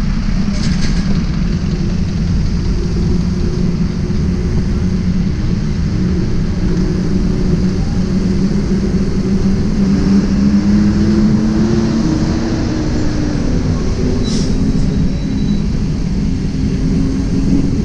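Engines of slow, close city traffic, heard from a motorcycle: a steady engine hum over a low rumble, its pitch climbing and wavering for a while in the middle. Two short hisses, about half a second in and again near the end.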